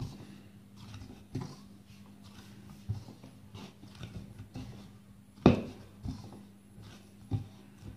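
Stiff pasta dough being kneaded by hand in a bowl: dull thumps and knocks as the dough is pressed and pushed against the bowl, every second or so, with one louder knock about five and a half seconds in. A steady low hum runs underneath.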